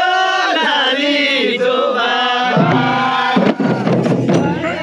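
Nepali kauda (chudka) dance song: voices singing long, wavering notes with musical accompaniment, and percussion beats coming in about three and a half seconds in.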